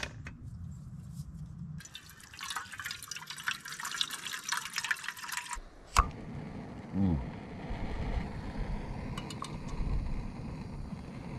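Water poured into a small camp cooking pot for a few seconds. About six seconds in there is a sharp click as a backpacking gas canister stove is lit, and its burner then runs with a steady hiss under the pot.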